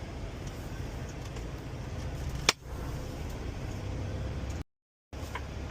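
Steady low rumble of a semi truck driving, heard from inside the cab. There is a sharp click about halfway through and a brief cut to silence near the end. Just after that, a turn signal starts ticking at about three ticks a second.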